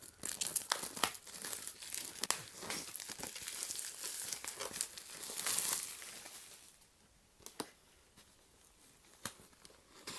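Packaging on a blind-box display box crinkling and tearing as it is opened, with sharp crackles for about six seconds. After that it goes quieter, with a few single clicks of handling.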